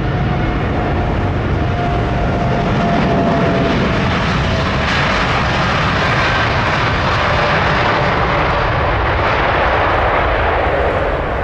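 Jet airliner taking off: a loud, steady engine roar with a thin whine that slowly falls in pitch. The roar grows brighter about five seconds in.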